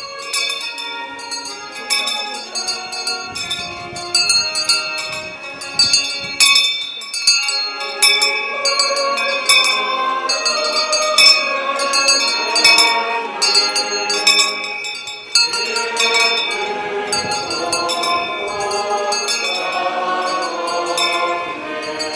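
A church hymn sung by a choir, with small bells jingling over it through much of the time.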